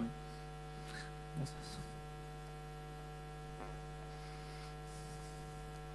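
Steady electrical mains hum, a stack of evenly spaced tones, with a few faint knocks.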